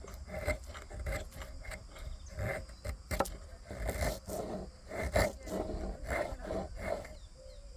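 Knife blade shaving feathers off a stick of fatwood: repeated short scraping strokes, roughly one or two a second.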